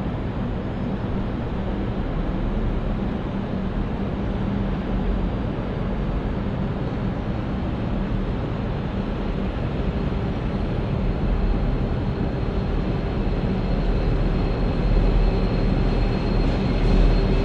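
Diesel locomotives hauling a freight train approach at low speed, a steady low engine rumble that slowly grows louder as they near. A thin, high, steady whine joins in about halfway.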